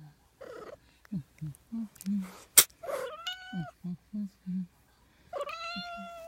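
Adult mother cat meowing: two long, level meows, one about three seconds in and one near the end, with a string of short, low sounds between them and a sharp click about two and a half seconds in.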